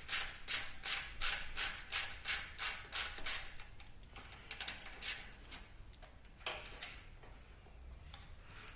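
Hand socket ratchet working a bolt loose, each back-swing giving a short rasping burst of clicks, about three strokes a second; after about three and a half seconds it slows to a few scattered strokes and clicks.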